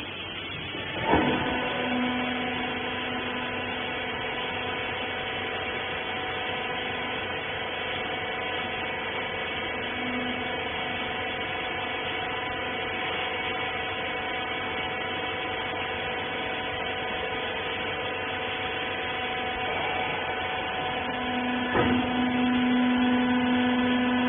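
Hydraulic clothes baler's electric motor and pump running with a steady hum. A knock about a second in marks the start, and another knock comes near the end, after which a deeper hum grows louder.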